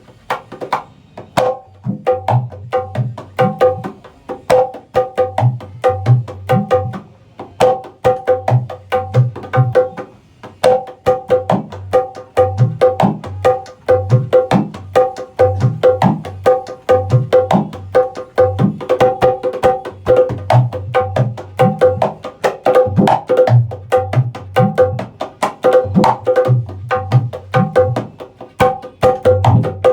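A dholak played by hand in fast rhythmic patterns, as a sound check of the drum. The treble head rings with a clear pitch over deep bass-head strokes, with a few brief pauses.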